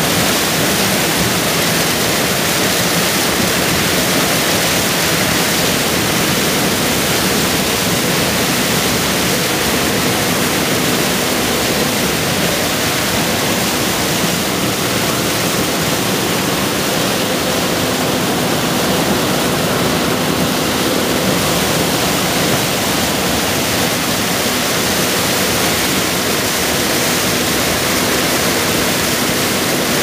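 John Deere 9500 combine harvesting corn, its corn head pulling stalks through the row units: a loud, steady rush of machine and crop noise with a faint hum underneath.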